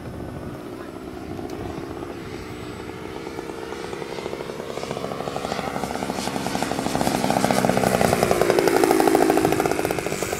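Small engine of a radio-controlled model airplane buzzing as the plane flies closer, growing louder to a peak about nine seconds in, where its pitch drops as it passes.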